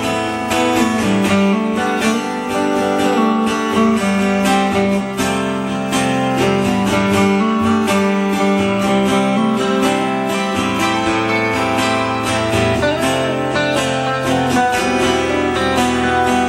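Instrumental guitar passage: an acoustic guitar strummed in a steady rhythm, with a hollow-body electric guitar playing along.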